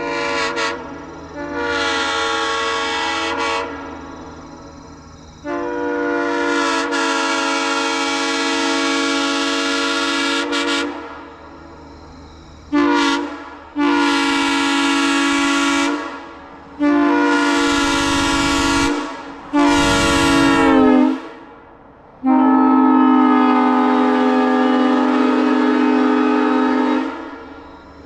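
Early Canadian-made Burnett Power Saws M3 three-chime locomotive air horn, fully restored, blown repeatedly. It sounds a steady chord in blasts of varying length, from short toots of under a second to a long blast of about five seconds.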